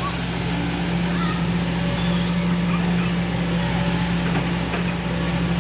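Kobelco SK140 hydraulic excavator's diesel engine running with a steady low hum, getting a little louder about a second in while the machine swings round and lowers its arm.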